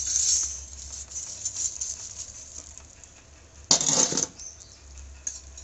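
Metal slotted spoon scraping and scooping lumps of burning charcoal, then the coals clattering onto the metal lid of the biryani pot about four seconds in, with a few light clicks after. The coals go on the lid to heat the pot from above for dum cooking.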